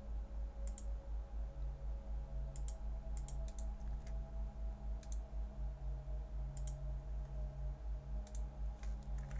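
A few single sharp computer mouse clicks, spaced unevenly, over a steady low hum that pulses about five times a second.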